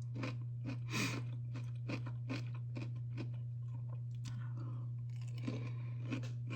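A person chewing crunchy dill pickles with the mouth close to the microphone: irregular crisp crunches and wet chewing. A steady low electrical hum runs underneath.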